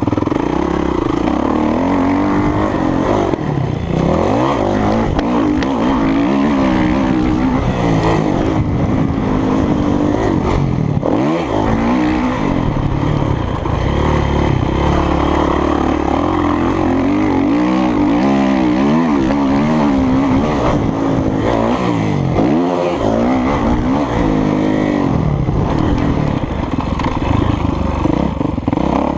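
Kawasaki motocross bike's engine from on board, its pitch rising and falling again and again as the throttle is opened and shut and the gears are changed, with a couple of brief lulls.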